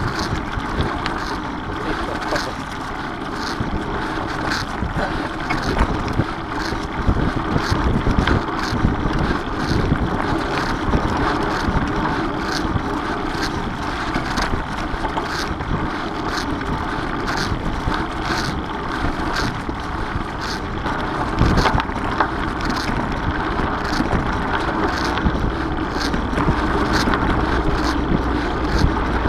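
Mountain bike riding along a leaf-covered dirt singletrack: a steady rush of wind over the camera's microphone and tyre roll, with light ticks and rattles from the bike a few times a second.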